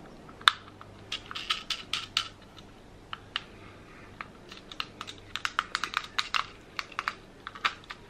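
Plastic fidget dodecahedron clicking as its buttons and switches are pressed, in quick irregular runs of sharp clicks. A single loud click comes about half a second in.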